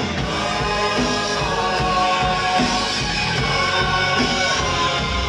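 Live hip-hop music over a club PA, with long held sung notes over a steady bass line and no rapping.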